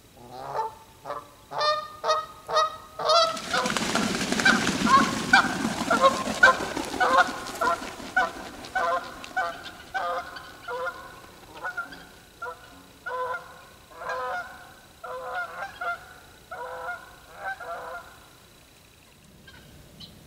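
Canada geese honking over and over, about two calls a second, the calls dying out a couple of seconds before the end. A loud rushing noise runs under the honks from about three to eight seconds in.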